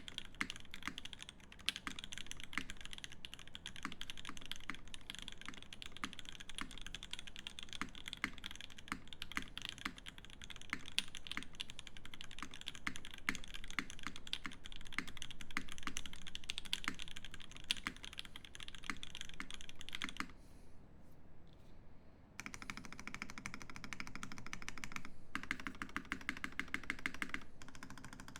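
Fast continuous typing on an IRON165 mechanical keyboard with lubed Banana Split linear switches, a copper plate and GMK keycaps. The typing runs as a dense stream of key presses. It pauses for about two seconds near twenty seconds in, then starts again.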